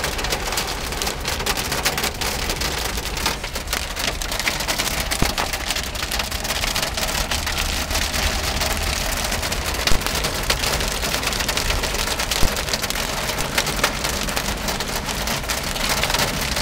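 Hail and heavy rain drumming on a car's roof and windscreen, heard from inside the cabin: a dense, steady patter full of sharp ticks, with two louder single knocks in the second half.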